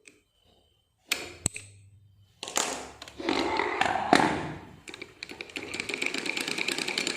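Sewing machine with one of its gears removed, started up and running with a rapid, even clatter from about five seconds in. The run is a test of how much mechanism noise remains. It comes after a few sharp clicks and some handling noise.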